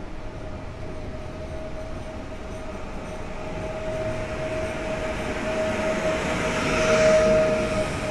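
PESA Elf electric multiple unit moving slowly past along the platform, its electrical equipment giving a steady whine over the rumble of the wheels. The sound swells, loudest about seven seconds in.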